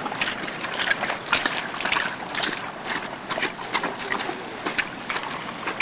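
Irregular splashing and squelching of bare feet wading through shallow water and wet mud.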